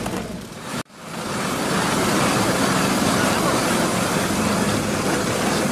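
Steady rushing outdoor background noise with no distinct events, broken by a sudden brief dropout about a second in.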